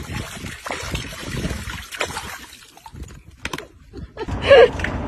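Water splashing and sloshing as a dog thrashes and plays in it, uneven and choppy, easing off about three seconds in; a short high cry with a bending pitch comes near the end.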